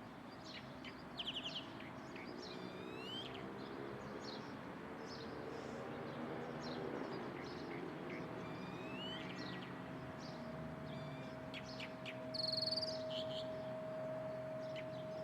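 Several wild birds chirping and calling, with short rising notes and a louder buzzy note near the end. A steady low hum runs beneath them, joined by a steady higher tone about halfway.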